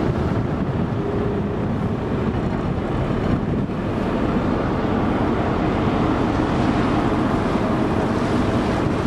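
A small ferry's engine running steadily underway, with water rushing past the hull through broken sea ice and wind buffeting the microphone.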